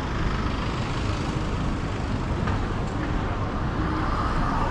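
Busy city-street traffic: a steady wash of cars, taxis and double-decker buses passing at a road junction, with a faint whine coming in near the end.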